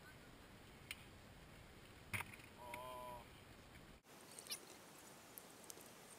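A kick scooter and its rider hitting a concrete skatepark bowl in a crash: one sharp clatter about two seconds in, followed by a short wavering cry. Otherwise faint background hiss.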